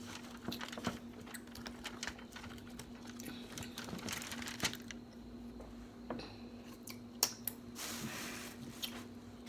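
Small scattered clicks, taps and crinkles of close-up handling, with a faint steady hum underneath.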